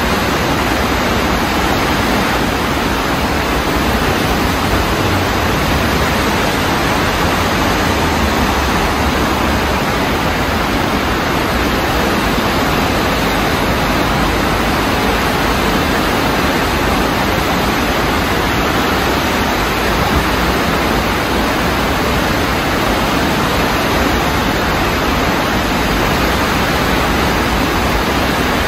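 Fast-flowing brown floodwater rushing steadily, a loud, even roar of water.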